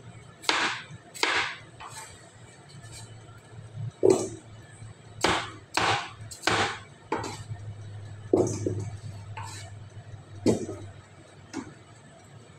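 A cleaver chopping through a peeled potato onto a cutting board: about a dozen sharp knocks at an uneven pace, some with a short scrape as the blade passes through.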